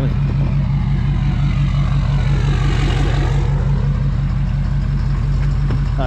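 Ford 6.7 Powerstroke turbo-diesel V8 running at idle with a steady, pulsing low rumble as the truck creeps along. A softer hiss swells and fades about halfway through.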